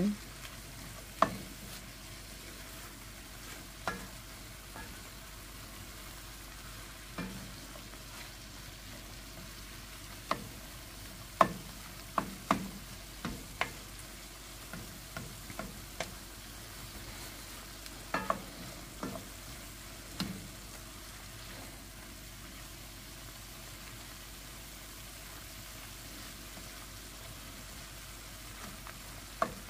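A spatula stirring and scraping a stuffing mixture in a frying pan, with irregular clicks and knocks against the pan over a faint steady sizzle. The stirring strokes come in bunches through the first two-thirds, then stop, with one more knock near the end.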